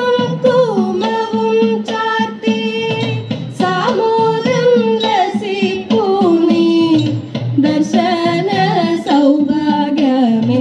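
Female voice singing a Malayalam Thiruvathirakali song in a Carnatic-style melody, with held notes and gliding ornaments over a steady low accompaniment.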